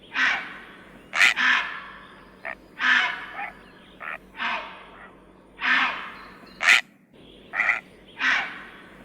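Crow cawing repeatedly: short, harsh calls about one a second.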